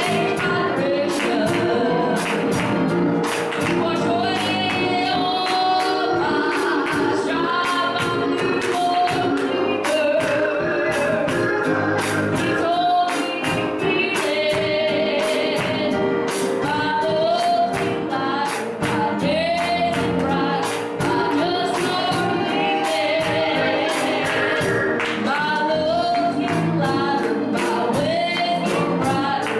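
Gospel song: voices singing over instrumental accompaniment with a steady beat.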